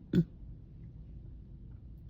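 A girl's single short burp, a fraction of a second in.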